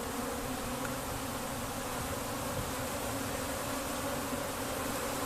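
Honeybees from a newly installed package colony buzzing steadily in the opened hive, a continuous even hum.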